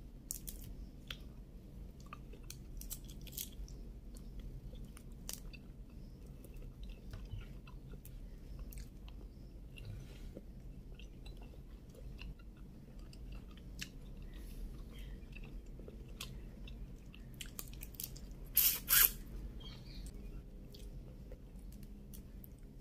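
Shells of cooked shrimp crackling and clicking as they are peeled by hand close to the microphone, mixed with chewing. Two loud sharp cracks in quick succession come late on.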